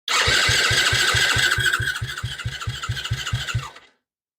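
Mini Tao Tao 100cc ATV's electric starter cranking the engine for about three and a half seconds, with an even chug of about six compression strokes a second under the starter's whine. It turns over with good compression but does not catch, and it fades a little before stopping.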